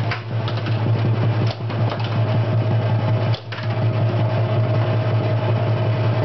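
Williams High Speed pinball machine in play: a steady low drone from the game's speaker, dropping out briefly a little past the middle, over a rapid run of clicks and clacks from the ball, flippers and solenoids.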